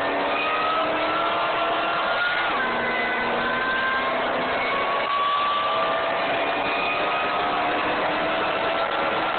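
Vehicle engine pulling hard under acceleration, its pitch climbing slowly, dropping suddenly at an upshift about two and a half seconds in, then climbing again through the next gear.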